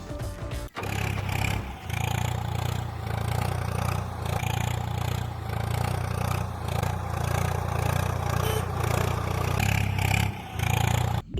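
A small motor running steadily with a rough, clattering scrape, starting about a second in and cutting off abruptly near the end.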